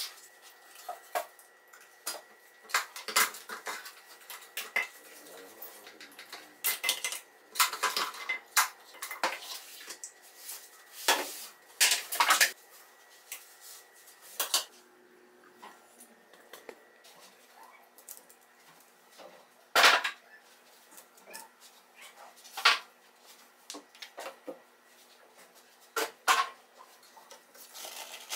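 Stainless steel kitchenware being handled, lifted and set down: a series of separate metallic clinks and knocks as a Turkish double teapot and electric kettle are cleared off a stone countertop, the loudest knocks near the middle and about two thirds of the way through.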